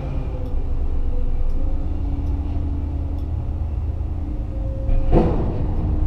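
Liebherr LHM550 mobile harbour crane's machinery humming steadily in the operator's cab while a container is hoisted, its pitch stepping up slightly a couple of times. A short clunk about five seconds in is the loudest sound.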